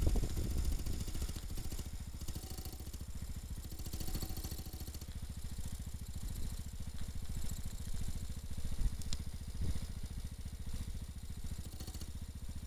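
Small vehicle engine idling steadily, an even putter with no revving.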